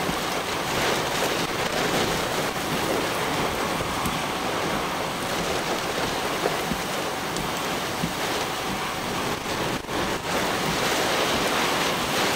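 Hurricane wind and heavy rain: a steady rushing noise with no let-up.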